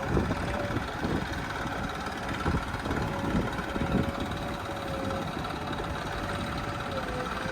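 Diesel engine of heavy machinery running, with a steady high whine over it and several irregular thuds and knocks.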